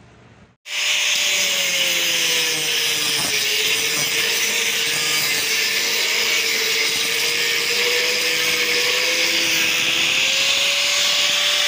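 Handheld angle grinder with an abrasive disc running at full speed against the face of a weathered wooden plank: a steady motor whine under a loud hiss of the disc on the wood. It starts abruptly under a second in, and its pitch sags slightly while the disc is pressed into the wood, then comes back up near the end.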